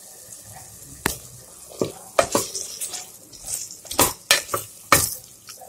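Spoon stirring potatoes and chickpeas in onion-tomato masala in a pressure cooker, clinking sharply against the pot several times over a faint sizzle.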